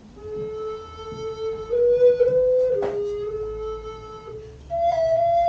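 A woodwind, flute-like in tone, playing a slow line of single long held notes that step up and down, then jump to a higher held note near the end. A sharp click sounds just before the third second.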